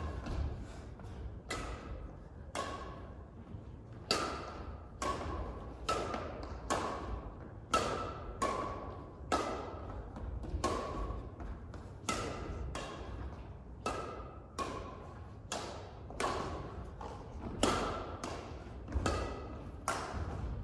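Badminton rally: the shuttlecock struck back and forth by two rackets, a sharp ping with a brief ring on each hit, about one hit every three-quarters of a second, echoing in a large hall.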